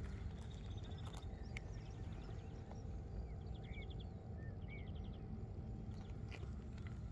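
Outdoor ambience: a small bird sings short rapid trills three times, with a few chirps between, over a steady low rumble, likely wind on the microphone; a few faint clicks.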